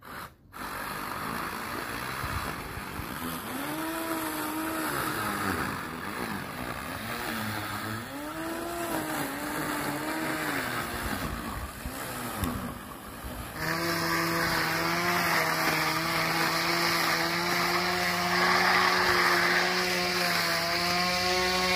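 Wheeled electric grass trimmer with a blade running and cutting grass: a motor whine over a rushing, shredding noise. The pitch rises and falls repeatedly as the blade takes and sheds load, then from about two-thirds through it holds steady and gets louder.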